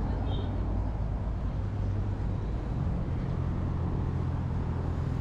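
Steady low wind rumble on the microphone of a camera riding on a moving bicycle.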